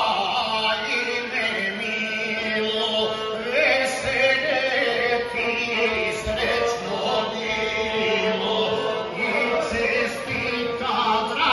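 A male guslar sings a Montenegrin sung toast (zdravica) in a chanted epic style, accompanying himself on the gusle, a single-string bowed folk fiddle.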